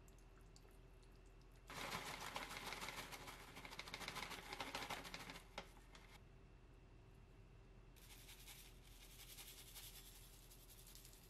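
A bag of crumbled seasoned laver (gim flakes) rustling as the flakes are shaken out onto a bowl of noodles: a dense, dry crackling rustle lasting about four seconds. About two seconds after it stops, sesame seeds are shaken from a plastic shaker bottle, a softer, finer patter.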